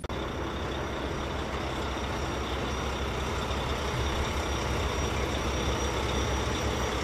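Caterpillar tracked excavator's diesel engine running steadily under load, a deep drone with a thin high whine over it.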